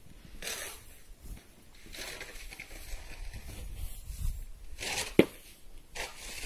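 Footsteps crunching in fresh snow: a few crunches spaced a second or two apart, with a sharp click about five seconds in.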